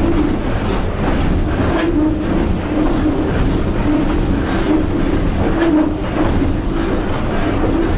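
An EP1 electric locomotive running on the line, heard from inside its cab: a steady rumble of wheels on rails with a wavering hum and light knocks over it.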